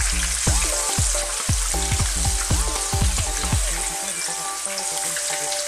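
Masala-coated king fish pieces sizzling in hot oil in a frying pan as they are turned with a spatula.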